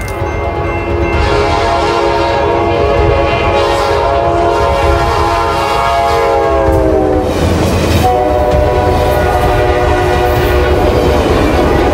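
Train horn sounding a long multi-note chord over the rumble of a moving train, the chord sliding down in pitch about six to seven seconds in; a second horn chord at a higher pitch starts about eight seconds in and holds.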